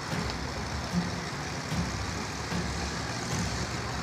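Many full-size demolition derby cars' engines running together in a steady mass of engine noise.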